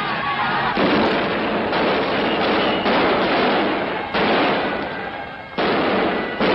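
Repeated sharp bangs, roughly one every second or so, each running into a rush of noise: tear-gas grenades going off in a street riot, heard on an old newsreel soundtrack.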